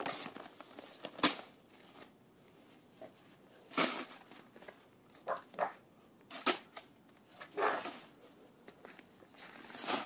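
Short crunches and scrapes in snow, a second or two apart.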